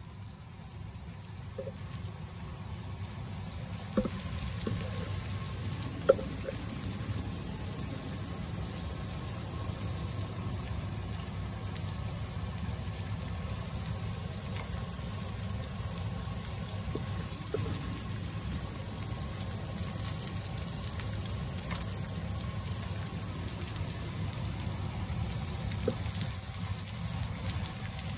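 Pans of fish curry simmering and fish frying on a stovetop: a steady bubbling, sizzling noise that fades in over the first few seconds, with a couple of sharp clicks about four and six seconds in.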